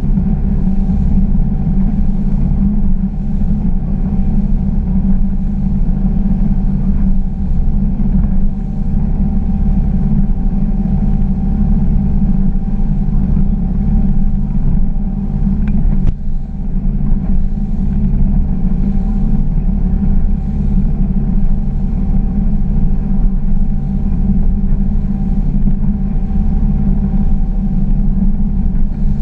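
Glastron GS205 bowrider's engine running steadily at cruising speed, a constant drone with a low rumble underneath as the boat runs across open water.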